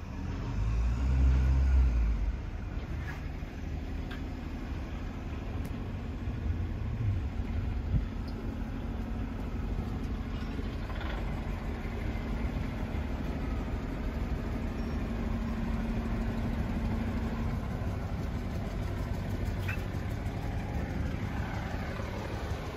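Steady low rumble of an engine running, with a faint steady hum through the middle. A louder low rumble swells for about a second and a half near the start.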